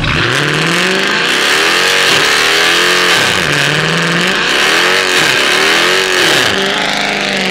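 Dodge Charger doing a burnout: the engine revs high, its pitch dipping and climbing again several times, over a steady loud screech of spinning rear tyres.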